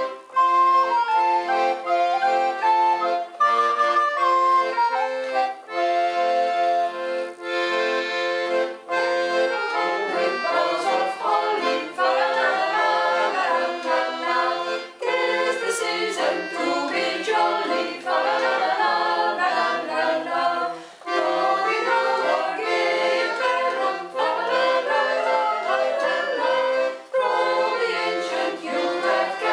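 Accordion playing a Christmas carol, with a small group of singers joining in about ten seconds in.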